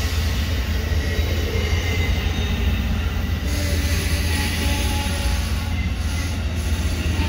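Amtrak Superliner passenger cars rolling past close by: a steady rumble of wheels on the rails, with faint high wheel squeal mixed in.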